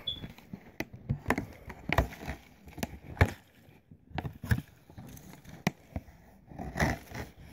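Irregular clicks and knocks of a clear plastic cricket tub being handled while someone tries to grab a cricket out of it, with a brief lull about four seconds in.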